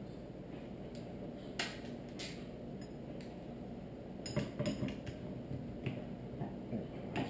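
Metal hand tools clinking and clicking as a socket, long extension and wrench are handled on a motorcycle fork: a few single clinks, then a quick cluster of them about four and a half seconds in.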